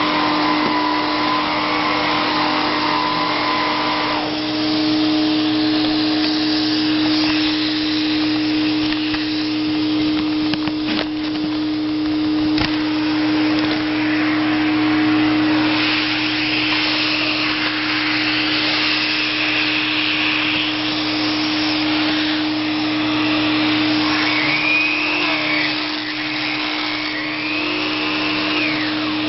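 Electrolux Renaissance canister vacuum cleaner running steadily: a constant motor hum under the rush of air through the nozzle. Near the end come a couple of short whistles of air that rise and fall in pitch.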